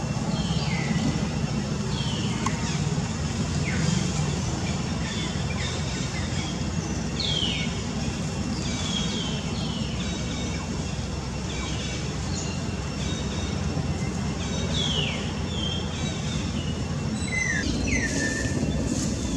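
Outdoor ambience: a steady low rumble under short, high, falling bird chirps that repeat every second or two.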